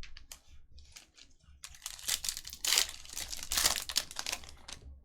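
Plastic wrappers of Panini Donruss Optic football card packs crinkling and tearing as packs are ripped open and handled, in irregular crackles that grow busiest and loudest in the second half.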